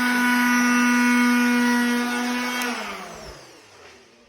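Electric sander's motor running at a steady high hum, then switched off about two and a half seconds in, its pitch falling as it winds down to a stop.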